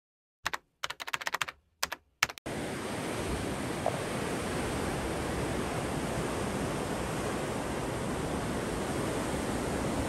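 A quick run of typing-like key clicks in short bursts, then about two and a half seconds in a steady rush of rough surf breaking against a rocky breakwater.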